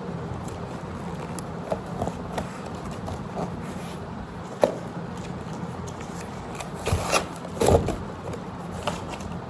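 A parcel being opened by hand: scattered scrapes, taps and handling noises, busiest about seven to eight seconds in, over a steady low hum.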